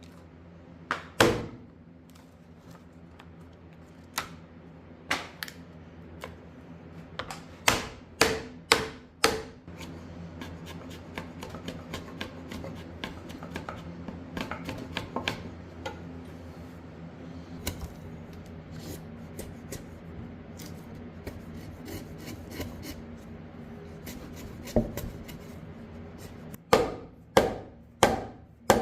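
Mallet blows knocking on wood as a notch is cut into a white pine timber. Single strikes and quick runs of three or four come early and again near the end, with a long stretch of steady scraping and rasping of wood in between.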